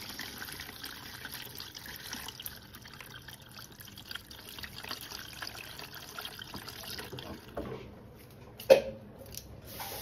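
Water jetting into a Bosch front-loading washing machine's detergent drawer as the machine fills for its rinse, a steady trickling splash that flushes the detergent out of the compartment. The flow dies down about three-quarters of the way through, and a single sharp knock near the end is the loudest sound.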